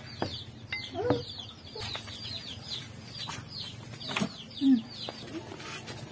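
Birds chirping steadily, many short falling chirps in quick succession. Over them come a few clinks and knocks of a pot lid and a serving spoon as rice is dished out.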